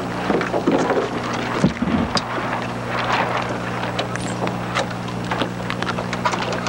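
Wind buffeting a camcorder microphone on open water over a steady low hum, with scattered sharp clicks and knocks and a few louder gusts.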